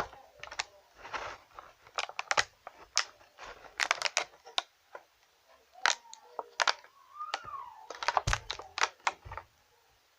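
Irregular sharp clicks and crinkles from hands handling chocolate Easter egg packaging. Midway there is a short tone that rises and then falls.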